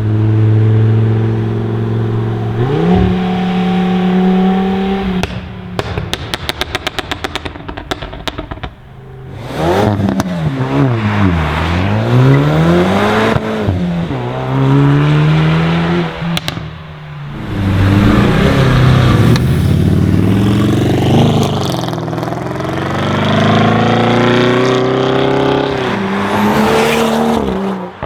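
Tuned car engine revving: a held engine note, then a run of sharp exhaust pops and crackles, then revs rising and falling again and again.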